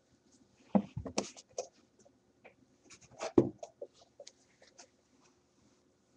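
Hands handling items and packaging: scattered rustling and small clicks. There are two louder bumps, one about a second in and one about three and a half seconds in.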